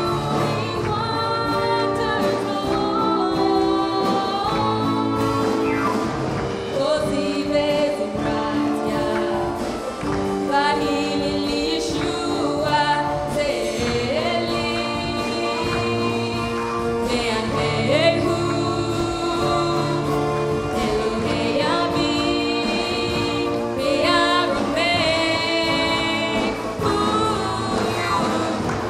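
Worship song: singing over a steady instrumental accompaniment.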